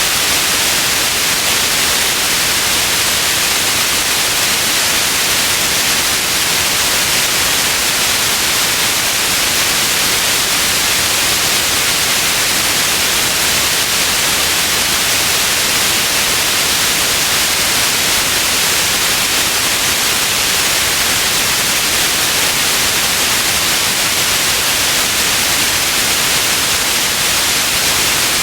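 Steady electronic white noise: an even, unchanging hiss, strongest in the high end.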